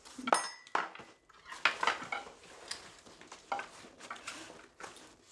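A metal spoon clinking and scraping against a pot and bowls while eating: a scatter of light knocks, the first ringing briefly.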